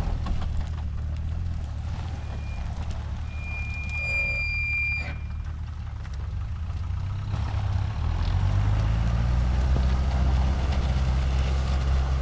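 4x4 engine running under load on a steep loose-rock climb, a steady low hum that shifts a little in pitch partway through. A brief high beep-like tone sounds about three to five seconds in.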